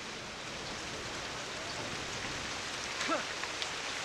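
Steady, even hiss of outdoor noise with a few faint ticks, and a short faint squeak about three seconds in.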